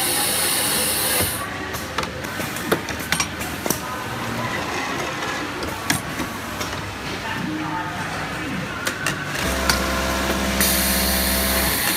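Automatic lockstitch hemming machine working: its pneumatic air cylinders click and clack, with hiss of compressed air for about the first second and again near the end. A steady machine hum comes in about nine and a half seconds in.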